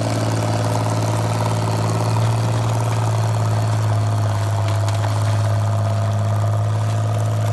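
An engine running steadily at a constant speed, a low even hum with no change in pitch.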